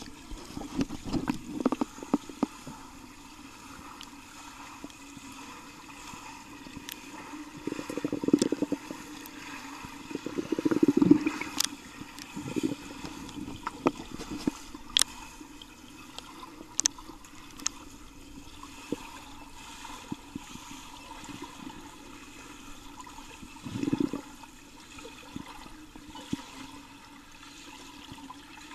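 Pool water heard underwater: muffled churning and bubbling as swimmers kick and stroke past, swelling in a few louder surges, with scattered sharp clicks.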